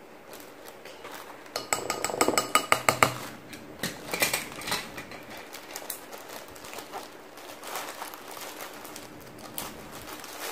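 A measuring spoon tapping rapidly against the rim of a ceramic bowl, about ten quick clinks in a second and a half, knocking out a spoonful of xylitol. Softer scattered clicks and handling sounds follow.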